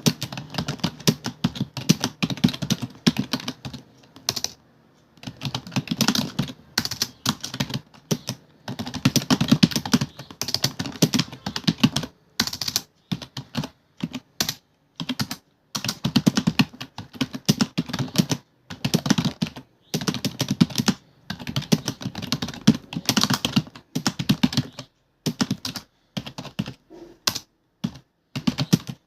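Computer keyboard typing: fast, continuous keystrokes in runs of several seconds, broken by brief pauses.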